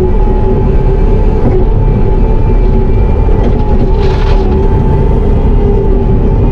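Bobcat T650 compact track loader running steadily, heard from inside the cab: a constant low engine rumble with a steady whine on top.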